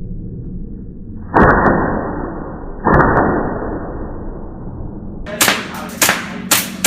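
Airsoft pistol firing a quick string of sharp shots, starting about five seconds in. Before that come two loud thumps about a second and a half apart, each fading away slowly.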